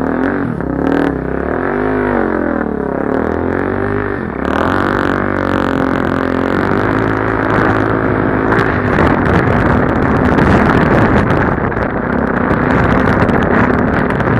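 Suzuki DR-Z400 dirt bike bored out to 470 cc, its single-cylinder four-stroke engine running loud. It revs up and down for the first few seconds, then runs on more steadily under way.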